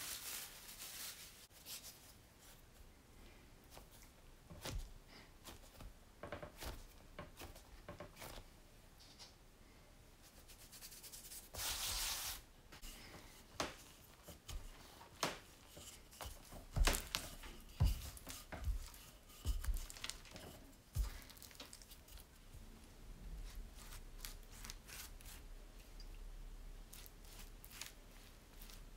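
Dough being handled on a kitchen worktop: cling film crinkling as it is pulled off the bowl at the start, then a wooden rolling pin rubbing and pressing over floured dough. Scattered soft knocks run through it, the loudest a few thuds past the middle.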